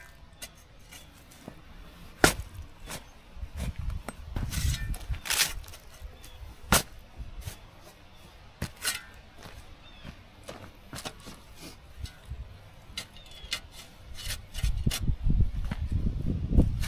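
Digging up a pepper plant with a shovel: a few sharp strikes and scrapes of the blade in the soil, with stretches of low rumbling handling noise, loudest near the end.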